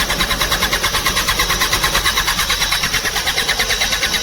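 Bobcat diesel engine cranking on its electric starter without catching: a steady whine with a quick, even beat of compression strokes. It will not start, which the mechanic puts down to the fuel pump not running.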